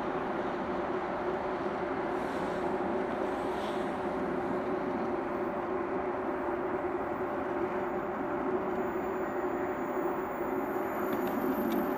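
Czech Railways class 380 (Škoda 109E) electric locomotive approaching with its passenger train at low speed: a steady running hum over a rushing noise, with a couple of light clicks near the end.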